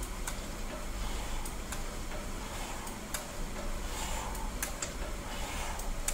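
Cable machine clicking lightly and irregularly as its cable is pulled through repeated paddle-like strokes, over a steady low hum.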